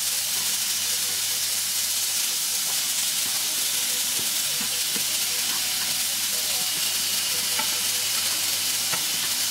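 Chicken breast fillet frying in olive oil in a pan: a steady sizzle with a few small pops.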